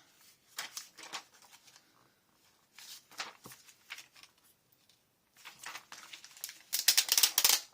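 Paper craft materials rustling and crinkling as they are handled, in a few short bursts, with a louder, longer crinkle near the end.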